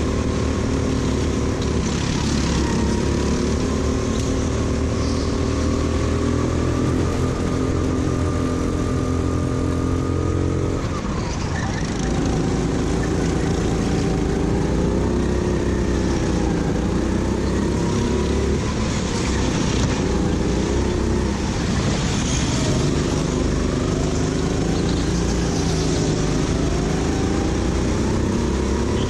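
Go-kart engine at race pace, its pitch climbing on the straights and dropping through the corners, several times over. The biggest drop comes about a third of the way in.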